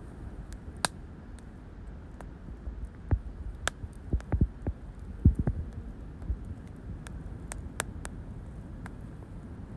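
Pine-cone campfire crackling: scattered sharp pops and snaps, with a few dull low thumps through the middle, over a steady low rumble.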